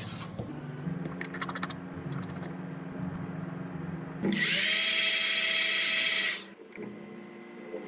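A small electric motor whines up to speed about four seconds in, runs steadily and loudly for about two seconds, then winds down and stops. Before it there are light clicks and taps as the phone is handled on the bench.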